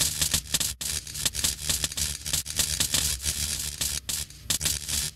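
Crackling, fizzing sparks sound effect: a dense run of sharp crackles over a hiss, thinning out and dying away at the end.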